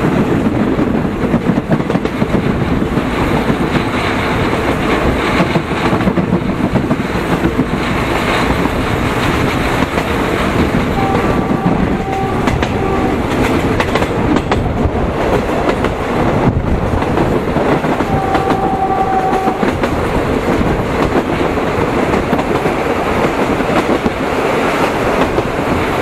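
Passenger train carriage running steadily along the track, heard from its open doorway: a continuous loud rumble and rattle of wheels on rails.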